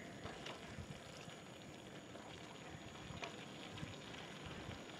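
Faint, steady sizzling of meat and onions frying in a sac pan, with a few small ticks.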